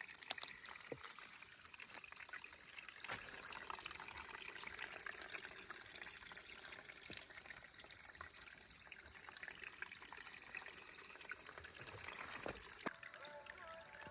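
Faint water trickling, with a few soft knocks. Music with sustained tones comes in about a second before the end.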